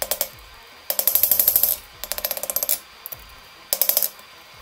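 Hand hammer striking red-hot mild steel on an anvil, forging the rounded penny end of a scroll. The blows come in four quick runs of rapid, ringing strikes, with short pauses between them.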